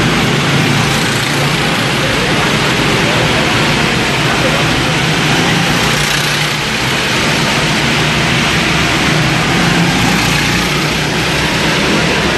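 Go-karts running laps on an indoor track: a steady, dense engine noise.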